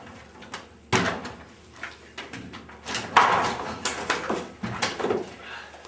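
A series of irregular knocks and clattering impacts, the loudest about three seconds in.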